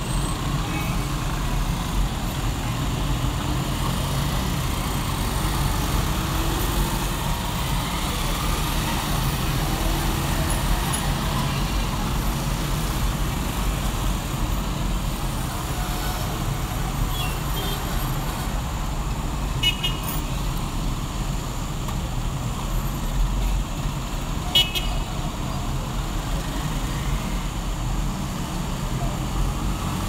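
City street traffic: a steady rumble of car and motorcycle engines, with a few short horn toots in the second half.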